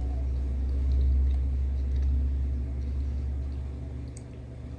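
A steady deep rumble, loudest about a second in and fading near the end.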